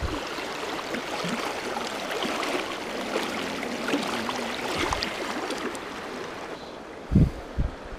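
Shallow creek water running and splashing close by, with hands and a brown trout being released in the current. Two short low thumps near the end.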